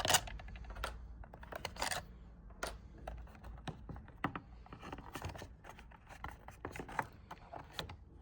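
Irregular small clicks, scrapes and scratches of a screwdriver working on the plastic case of a handheld radio scanner and the case being handled, as its back cover is taken off.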